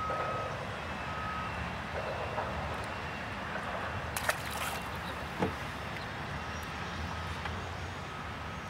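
Low steady rumble of a distant vehicle engine, with a faint high beep repeating about once a second like a reversing alarm, and a couple of short sharp clicks about four and five seconds in.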